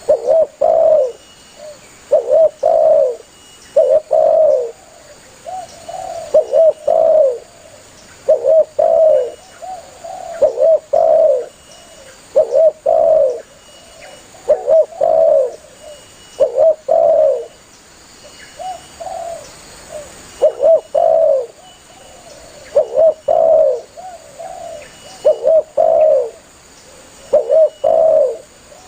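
Spotted dove (tekukur) cooing steadily. Short phrases of a few low coos repeat about every two seconds.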